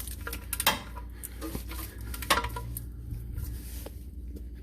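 Sharp metallic clinks and clicks from hand tools and metal parts under a car, as a fitting is tightened by hand. The two loudest clinks come about 0.7 s and 2.3 s in, with lighter clicks between them.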